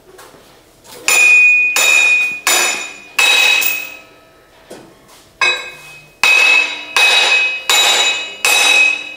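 A hammer striking old lug studs to drive them out of a square-body Chevrolet K20's wheel hub: sharp metal-on-metal blows, each ringing briefly, about one and a half a second, with a pause of about two seconds near the middle.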